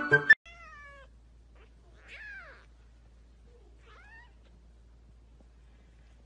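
A cat meows three times. The first call falls in pitch, the second and longest rises and then falls, and the third is short and rising.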